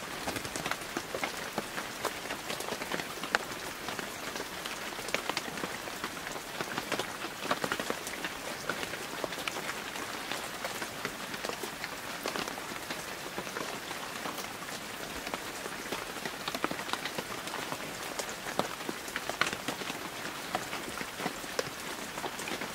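Steady rain falling, with many separate drops heard as small ticks; it starts suddenly and holds even throughout.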